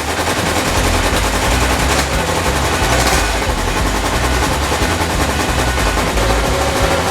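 Kawasaki GPz550's air-cooled inline-four engine running loudly, its exhaust a fast, even stream of pulses.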